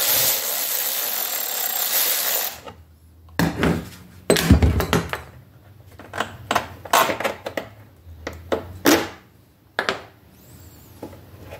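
Cordless electric ratchet running steadily as it backs out the 10 mm bolt that holds a Yamaha PW50's gas tank, stopping about two and a half seconds in. Then comes a string of separate clicks and knocks as the tank is worked loose by hand.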